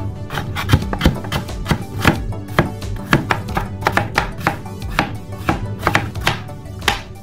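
Chef's knife chopping carrots and then cucumber on a cutting board: a steady run of sharp knife strikes, about two to three a second.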